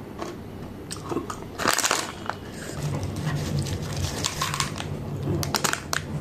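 Plastic snack packet crinkling loudly as it is torn open, then a quick run of small clicks as hard, crunchy snack pieces drop into a stone mortar. A low steady hum sets in about three seconds in.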